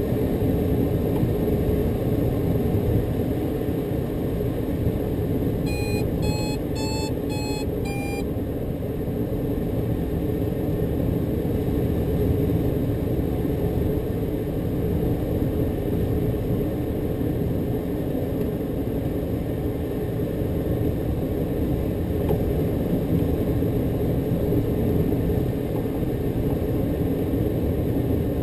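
Steady drone in the cockpit of a light aircraft in flight: engine, propeller and airflow. About six seconds in, five short electronic beeps from the cockpit avionics.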